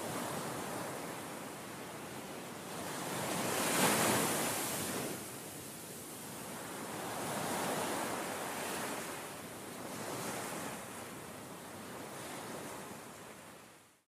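A rushing noise across all pitches that swells and ebbs several times, loudest about four seconds in, and fades out at the very end.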